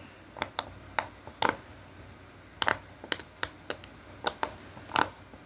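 Silicone pop-it fidget toy being pressed: a run of about fifteen short, sharp pops at an uneven pace, some in quick pairs.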